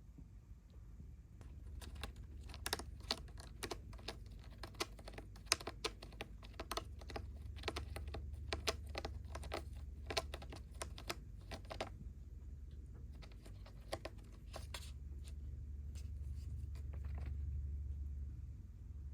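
Kitten purring with a loud, low rumble that swells twice, over a run of small rapid clicks and scratches.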